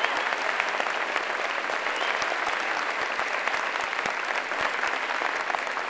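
Large audience applauding, a dense clatter of many hands clapping that eases slightly toward the end.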